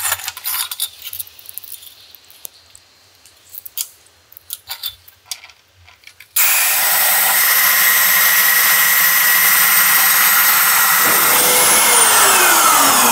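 Clicks and knocks as a cast iron SML pipe is laid onto the roller bed of a REMS Cento pipe cutter. About six seconds in, the machine switches on suddenly and runs loudly while its slowly turning ST cutter wheel drives and cuts the pipe, with a steady high ringing tone. Near the end a tone falls in pitch.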